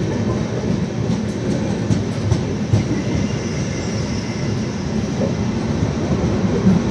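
Indian Railways LHB passenger coaches rolling past along a platform: a steady low rumble of steel wheels on rail, with faint clicks over it.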